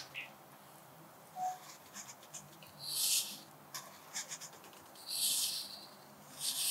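Pencil scratching across paper in cursive handwriting strokes. There are three longer scratches about three, five and six and a half seconds in, with short light ticks and taps between them.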